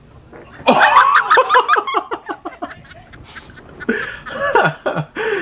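A sudden burst of loud laughter and shrieking about a second in that fades away, with more laughing near the end.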